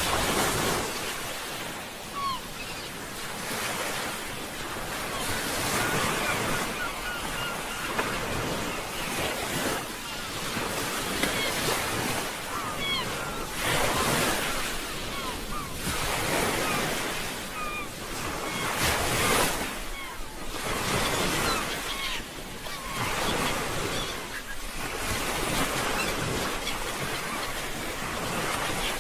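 Sea waves breaking and washing ashore, swelling in surges every two to three seconds.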